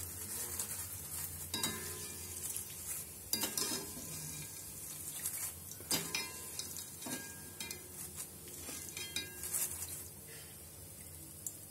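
Wire-mesh skimmer clinking and scraping against a metal kadai as thin yam chips are stirred and lifted in hot oil, over a steady sizzle of deep-frying. The clinks come every second or so and stop near the end.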